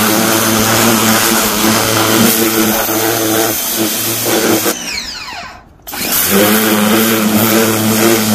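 Ryobi 1,600 psi electric pressure washer spraying, its electric motor and pump humming steadily under the hiss of the water jet. About four and a half seconds in the trigger is let go: the motor winds down to a stop, then starts up again a second later as spraying resumes.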